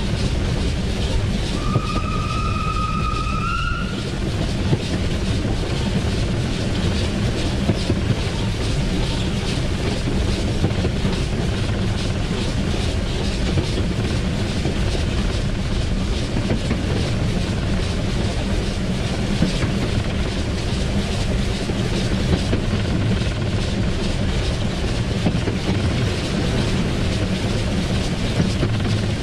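Swedish SJ E2 steam locomotive running along the line, heard from its cab: a steady rumble with wheels clattering over the rails. About two seconds in, a high tone sounds for about two seconds and rises slightly just before it stops.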